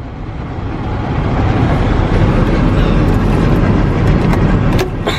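Steady low rumble of heavy engines and sugar beet piler machinery, growing louder over the first second or so, with a short knock near the end.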